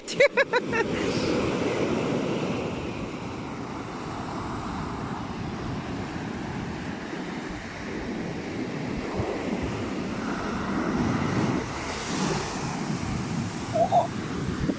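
Rough sea surf breaking and washing up the beach in strong wind, with wind buffeting the microphone. The surf swells louder about nine to twelve seconds in.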